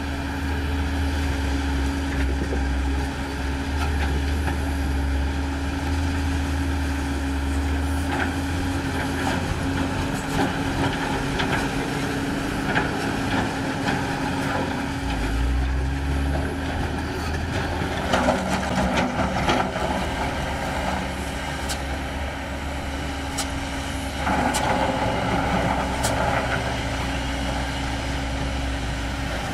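Diesel engines of a hydraulic excavator and dump trucks running steadily at a rock-loading site, with two bouts of rock clattering as rocks are dropped into a steel dump truck bed in the second half, and a few sharp knocks.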